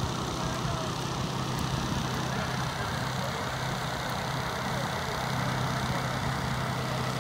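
Fire engine's diesel engine idling steadily, a low hum.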